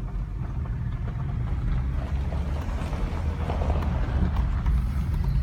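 Low, steady rumble of a vehicle on the move, growing slowly louder.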